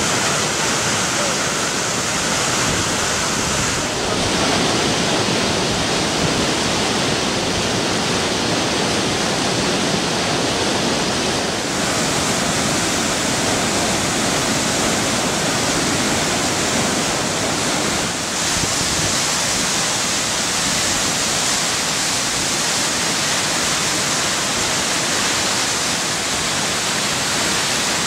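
Swollen, muddy floodwater rushing through a stone-walled river channel as steady, loud white-water noise with no breaks.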